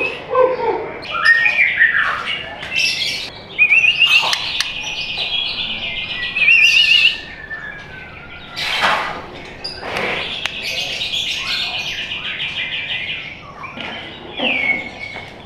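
Young white-rumped shama (murai batu) singing: three long, rapid trills of repeated notes, broken by shorter whistled phrases and a few sharp clicks.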